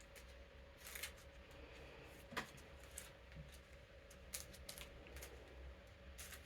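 Faint rustles and clicks of cards being slid into plastic card sleeves and handled, with one sharper click about two and a half seconds in, over the steady hum of an electric fan.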